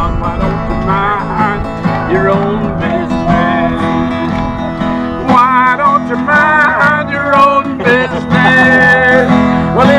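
Acoustic guitar strummed in a lively country-style tune, with voices singing along.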